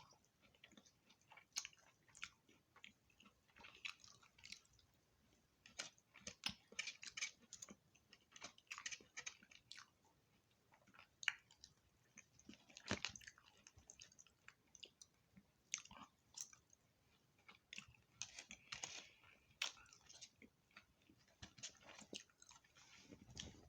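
A person chewing and biting into fried chicken and seasoned French fries, with irregular crisp crunches and wet mouth clicks.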